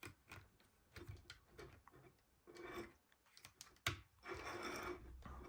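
Faint handling noise of a plastic Lego model being moved: scattered small clicks, one sharper click a little past the middle, then a soft rubbing sound over the last second or so.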